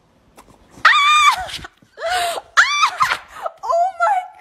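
A puppy giving a string of loud, high-pitched yelping howls, about five in a row, each rising and then falling in pitch, as if talking back.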